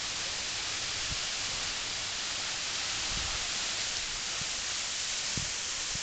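Steady rushing hiss of a small waterfall spilling down a rock face into a rocky creek. A few soft low thumps come through it.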